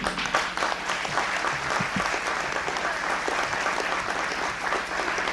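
Audience applauding, a dense steady clapping that starts suddenly.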